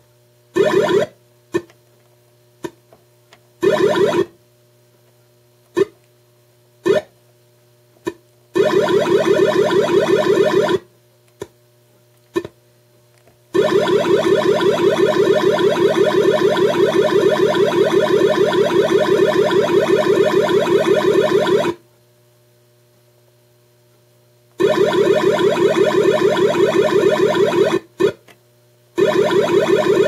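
Williams Whirlwind pinball machine's synthesized game sound cutting in and out: a few short blips, then longer stretches of a warbling synth tone that start and stop abruptly. The dropouts come from a faulty 6802 sound CPU on the System 11B board, which cuts the sound when pressed.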